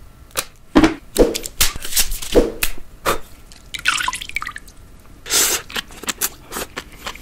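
An irregular run of more than a dozen short, sharp plops and clicks, with a brief falling swish about four seconds in.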